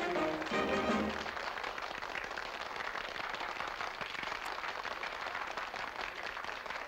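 A dance band's number ends on a held final chord about a second in, and the audience breaks into steady applause.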